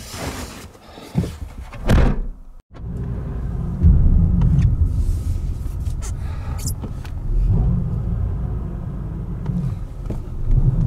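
Rustling and knocks of movement, then a car engine running with a steady low rumble heard from inside the cabin. The rumble gets louder about four seconds in.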